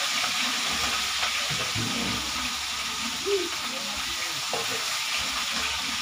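Fish frying in hot oil in a steel wok: a steady sizzle, with a few light knocks.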